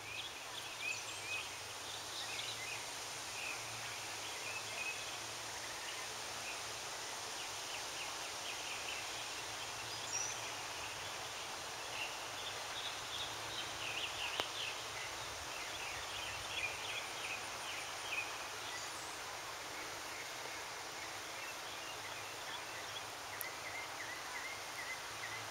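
Steady outdoor background noise with scattered faint high chirps through the middle.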